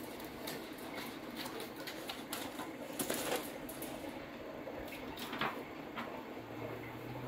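Magazine paper rustling and crinkling, with scattered light clicks and crackles, as a small pet monkey handles the pages and rummages among toys; the louder crackles come about three seconds in and again about five and a half seconds in.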